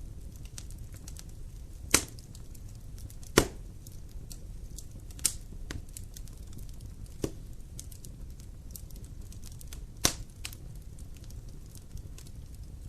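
Wood fire burning in a fireplace: a steady low rumble of the flames with continual faint crackling and about five sharp pops from the burning logs, the loudest about two, three and a half and ten seconds in.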